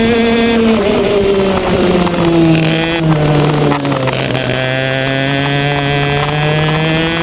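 Racing kart engine heard onboard, running at high revs, then dropping in pitch for about three seconds as the kart slows into a corner, then climbing steadily again as it accelerates out.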